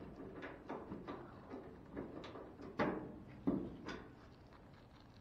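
About six light knocks and clunks over the first four seconds: dryer panels and parts being handled and set in place.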